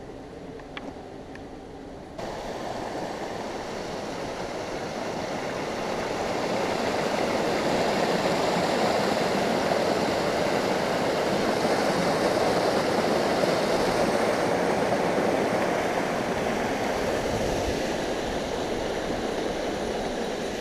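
Rushing water of a small creek tumbling over rocks, a steady hiss that comes in suddenly about two seconds in, grows louder and is strongest in the middle before easing a little near the end.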